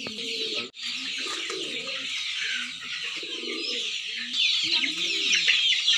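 A large flock of two-month-old country chickens (naattu kozhi) calling together: a dense mass of high peeping with short low clucks under it. It breaks off for an instant just under a second in and grows louder about two-thirds of the way through.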